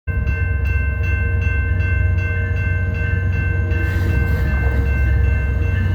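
VIA Rail F40PH diesel-electric locomotive pulling a passenger train away: a heavy, steady engine rumble with several steady high-pitched tones held over it, and a run of evenly spaced light clicks in the first few seconds.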